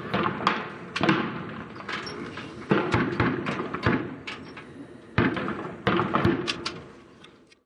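A string of gunshots at uneven spacing, each shot ringing out before the next, growing fainter until they fade out near the end.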